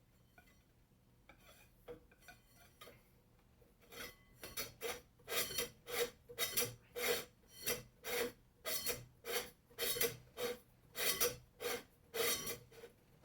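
Ceiling fan's metal bottom dome being screwed back on by hand: a run of short rasping strokes of metal threads rubbing, about one and a half to two a second, starting faint and getting louder about four seconds in.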